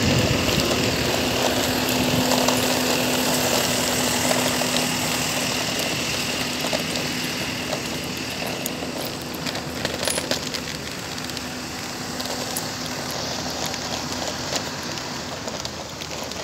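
Car traffic on a wet road: tyre hiss that slowly fades, with a steady engine hum that dies away about five seconds in.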